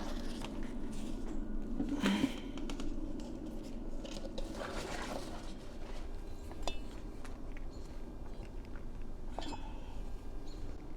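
Mortar being mixed by hand in a small container: irregular wet scraping and stirring, with a few sharp clinks of the tool against the container.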